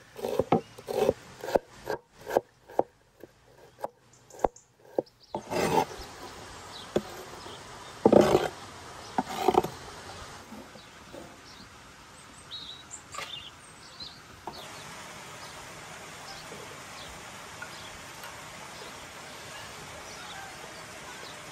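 Cleaver chopping red onion on a wooden cutting board: a quick run of sharp chops, about two or three a second. It is followed by a few heavier knocks, then a steady background with faint high chirps.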